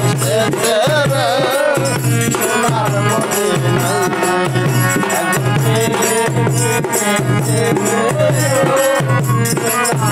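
Bengali folk ensemble playing: a dhol drum beats a steady rhythm under small jingling hand cymbals, while harmonium and bamboo flute carry a wavering melody.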